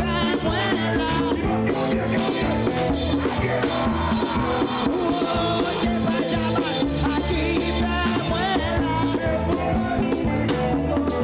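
Live band music with a steady drum-kit beat, bass and a lead instrument or voice, in an upbeat Caribbean dance rhythm.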